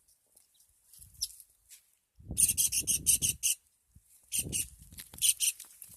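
Kingfisher calling in quick series of shrill notes, about six a second: a longer run about two seconds in, then two shorter runs near the end.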